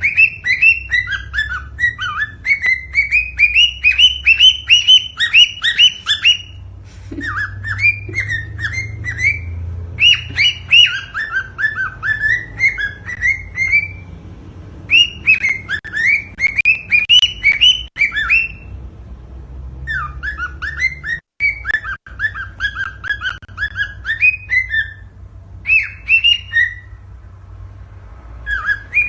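Cockatiel singing: phrases of quick, repeated whistled chirps a few seconds long, broken by short pauses, over a low steady hum. It is courtship song of the kind played to encourage cockatiels to mate.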